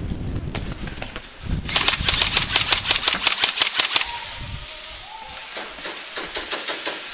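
Airsoft gunfire: a rapid full-auto burst of sharp cracks lasting about two seconds, starting about a second and a half in. Scattered, slower shots follow, some fainter.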